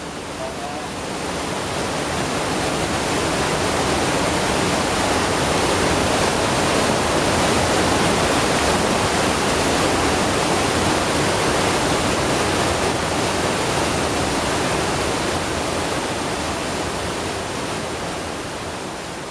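Waterfall: white water plunging into a rocky pool with a steady, dense rushing noise. It swells up over the first few seconds and begins to fade near the end.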